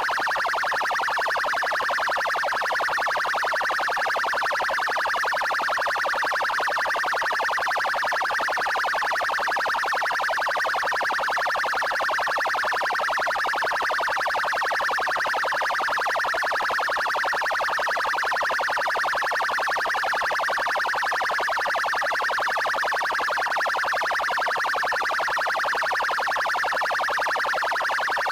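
Police siren sounding its 'trail' tone: a fast, pulsing electronic tone that carries on steady and unbroken.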